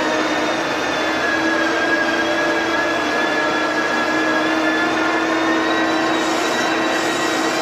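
SINOMACH 717H motor grader's diesel engine running steadily as the grader drives slowly over gravel, with a steady whine above the engine note.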